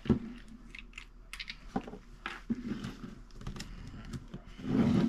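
Plastic clicks and clacks of a YJ MGC 5x5 speedcube being handled and its layers turned, with a small lube bottle knocked down onto a wooden desk. A louder rustle comes near the end.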